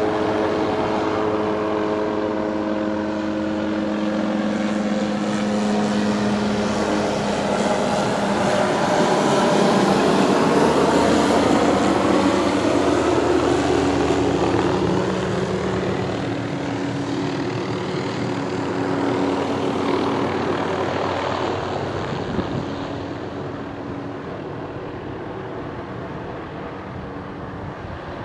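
Hughes/MD 500 helicopter's turbine engine and main rotor running in flight as it comes in to land. The sound grows louder as the helicopter passes closest, about ten seconds in, then fades as it descends toward the field.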